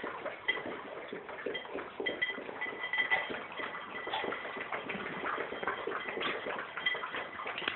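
A litter of golden retriever puppies lapping water together from one metal bowl: many quick, irregular wet clicks and laps overlapping.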